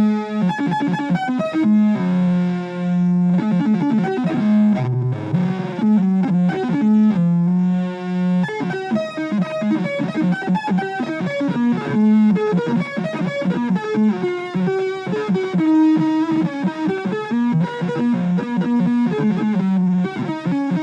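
Electric guitar played through a distortion effects pedal, a run of shifting, oddly pitched notes with a strong low drone underneath.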